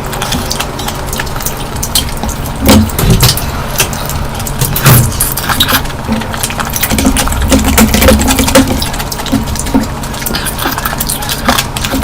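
Close-miked eating: wet chewing, lip smacks and mouth clicks as curry is eaten in big bites, with heavier chewing around 3, 5 and 7 to 9 seconds in.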